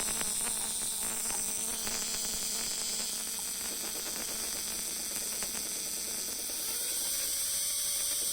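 Spark plug tester firing the BMW M52's removed spark plugs at a rate set to 1000 engine rpm: a fast, even ticking of sparks over a steady high hiss. Both plugs spark normally, showing they are not the cause of the misfire.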